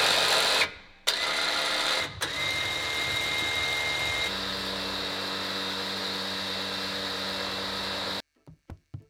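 WARN Axon 55-S 2.5-ton electric winch motor running, hauling in its synthetic rope. It runs in several short spells, each with a whine that rises and then holds. The last and longest spell, hauling in the dolly, is a deeper, steady drone that cuts off sharply about eight seconds in.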